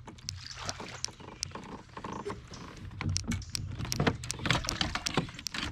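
Scattered light clicks and knocks of fishing gear being handled aboard a fishing kayak, over a faint low hum.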